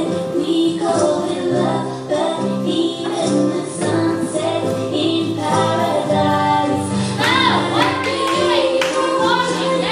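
Music: a song with a high singing voice over sustained accompaniment, the voice bending in pitch about seven seconds in.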